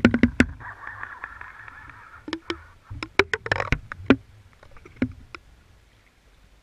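Sharp knocks and clicks on a GoPro's waterproof housing, fixed to a deep-water halibut rig, as the rig is jostled underwater. A squeaky rubbing runs for about a second and a half near the start. The knocks come in clusters: several at the start, a pair, then a dense run a little past the middle, and a few more near the end.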